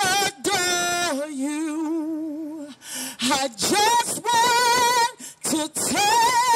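A woman singing a gospel worship song unaccompanied, drawing out several long held notes with a wide vibrato, with short breaks between phrases.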